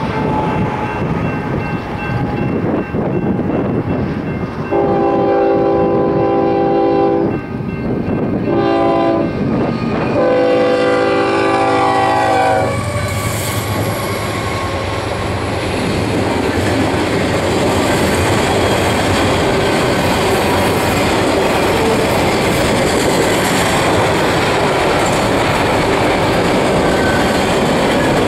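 Diesel locomotive air horn on a Union Pacific GE ES44AC sounding a grade-crossing signal: a long blast, a short one and a final long one. About 13 seconds in the locomotives' engines pass, and then double-stack container well cars roll by with steady wheel noise and clickety-clack over the rail joints.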